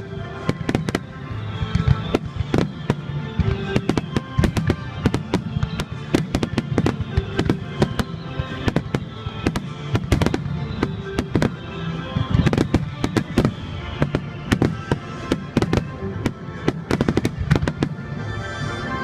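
Fireworks display: many shells bursting and crackling in quick succession throughout, with music playing along.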